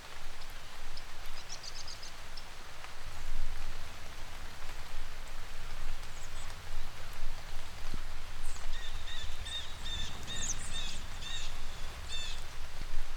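Steady rain falling. About two-thirds of the way through, a bird calls in a quick series of short repeated chirps.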